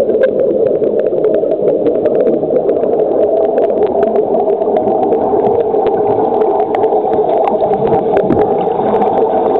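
Underwater ambience in a swimming pool, picked up by a submerged camera: a steady, muffled drone with many small clicks and crackles running through it.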